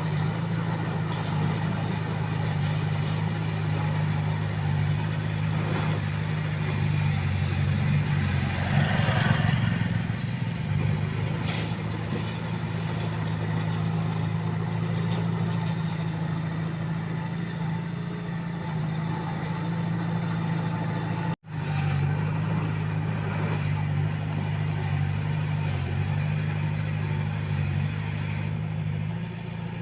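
Komatsu D21A bulldozer's diesel engine running steadily with a deep, even drone. It swells louder for a moment about a third of the way in, and cuts out for an instant about two-thirds of the way through.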